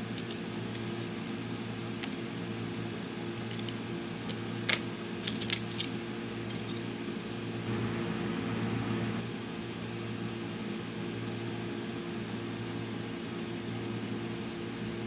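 A few sharp, small metallic clicks and taps about four to six seconds in, from small tools and parts being handled while a laptop is taken apart, over a steady low hum.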